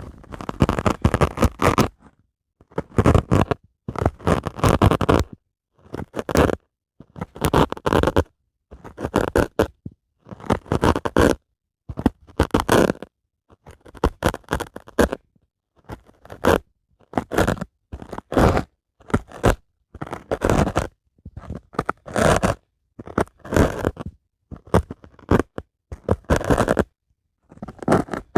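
Dry sponge worked by hand in repeated strokes, giving a loud, scratchy, crunchy scraping about once every second or so, with short silences between strokes.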